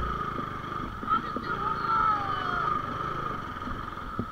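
Bajaj Pulsar 220's single-cylinder engine running at low speed as the bike creeps over a rutted mud track, with a steady high-pitched tone running through it and a short knock near the end.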